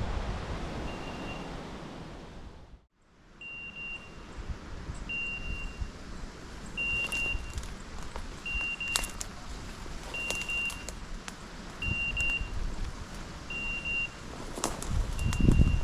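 Hunting dog's beeper collar sounding a short, high electronic beep about every 1.7 seconds, around nine times in all. Wind buffets the microphone at the start and again near the end, and there are a few sharp snaps of brush.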